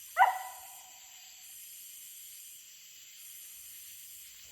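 A coonhound's single treeing bark about a quarter second in, loud and trailing off over about a second, the bark of a hound that has a raccoon up a tree. A steady high hiss runs underneath.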